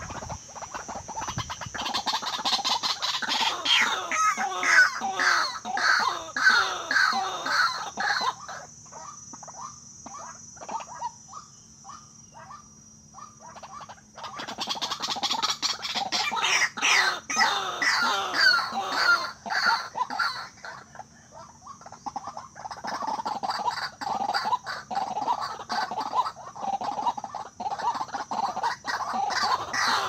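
White-breasted waterhens calling: rapid runs of repeated harsh notes, several a second, in long bouts that stop for a few seconds about a third of the way in and again about two thirds in. A thin steady high tone runs underneath.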